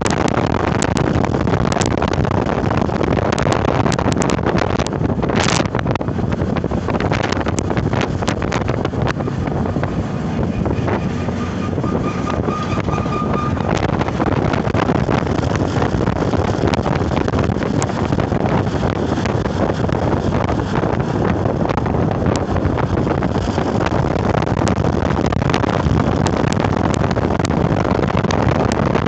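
Steady rushing noise of vehicle travel, with wind buffeting the microphone and scattered sharp clicks. A faint held tone sounds for a couple of seconds about eleven seconds in.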